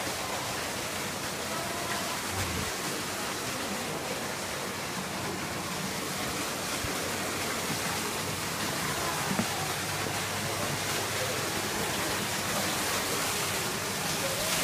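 Steady, even rushing hiss of running water from a small waterfall in a tropical glasshouse, with faint voices in the background.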